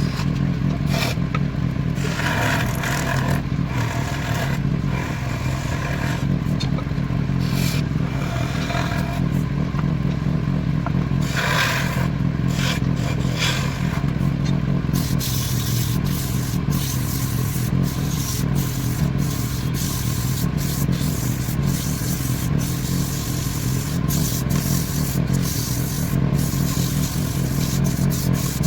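Wood lathe running with a steady motor hum while a turning tool scrapes and cuts the spinning wood in irregular passes.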